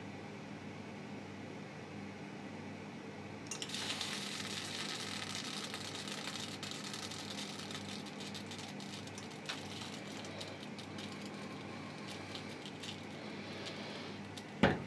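Molten lead poured into the weight holes of a carved wooden fishing lure, sizzling and crackling from about four seconds in as it meets the wood, then slowly dying away, over a steady background hum. A single sharp knock near the end.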